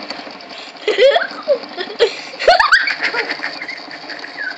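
Several people's voices calling out and laughing without clear words, with a sharp squeal rising in pitch about two and a half seconds in.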